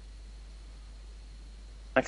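Steady background hiss with a low hum and a faint thin high-pitched tone: the noise floor of the recording, with no distinct sound event.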